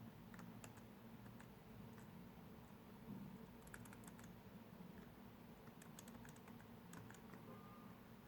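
Faint, scattered key clicks of typing on a laptop keyboard, with a couple of quick runs of keystrokes about four and six seconds in, over a low room hum.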